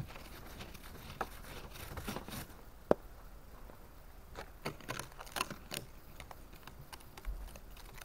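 Snow brush and ice scraper working frozen snow and ice off a car's windows: irregular short scratches and crunchy clicks, with one sharp click about three seconds in.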